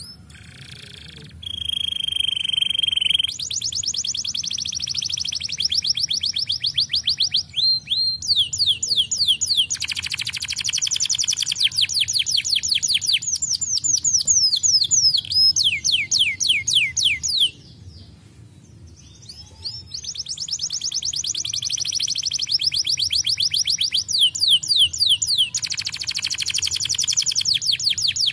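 Domestic canary singing: long rapid trills of quickly repeated sweeping notes, with a held whistled note near the start and a pause of about two seconds past the middle.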